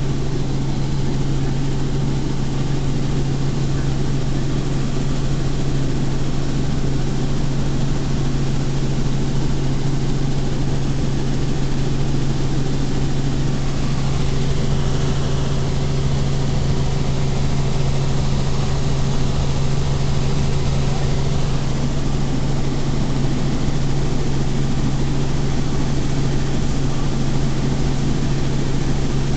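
Helicopter engine and rotor noise in flight, heard from inside the cabin: a loud, steady drone with no let-up.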